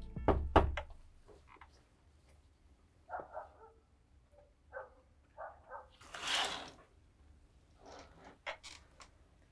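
A music cue ends about a second in. Then a dog barks faintly a few times, with a short rustle, and there are a few light clicks near the end.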